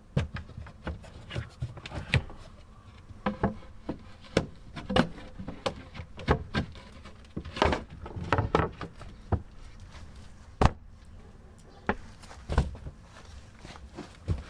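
Plywood boards being set down and slid into place over wooden storage boxes: a run of irregular wooden knocks and scrapes.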